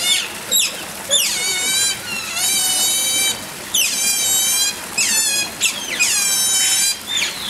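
Asian small-clawed otters calling to each other in a rapid series of high-pitched calls, short downward sweeps mixed with longer calls held for about a second.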